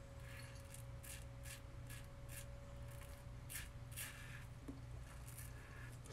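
RazoRock Lupo .95 double-edge safety razor scraping through lathered stubble in short strokes, about two a second, faint.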